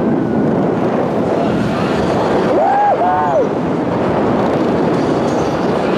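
Wind rushing hard over the microphone of a wingsuit pilot's on-body camera in fast flight: a loud, steady noise of air. Two short rising-and-falling tones come about halfway through.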